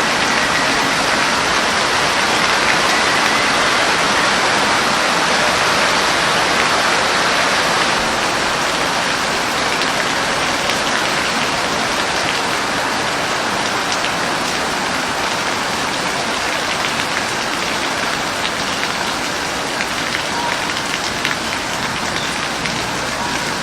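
Steady rain falling on a hard surface, with individual drops ticking through the hiss, easing slightly over the second half.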